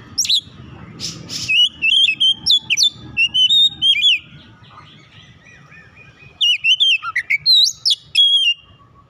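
Oriental magpie-robin singing fast phrases of sharp, gliding whistled notes in two bouts, separated by a quieter gap of about two seconds.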